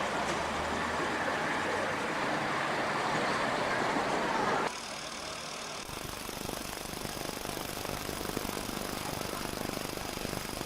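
Engine noise from heavy vehicles or machinery running. About halfway through it cuts suddenly to a quieter, steadier running sound with a faint high whine.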